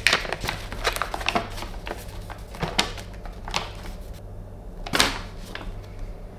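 Paper handled: a letter slid out of its envelope and unfolded, giving a run of short crisp crinkles and rustles, with one louder crackle about five seconds in.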